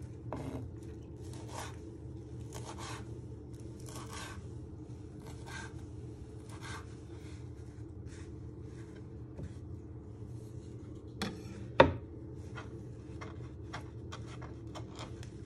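Chopped parsley being scraped and gathered together by hand on a wooden chopping board: a series of short rubbing scrapes about once a second, with one sharper knock about three-quarters of the way through, over a steady low hum.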